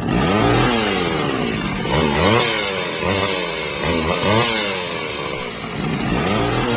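Chainsaw engine revved up and down over and over, its pitch rising and falling about once a second.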